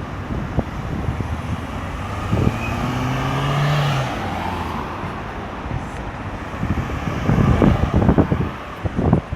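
Road traffic going round a busy roundabout. A vehicle passes about three to four seconds in, its low engine note rising to a peak and fading. Near the end wind buffets the microphone.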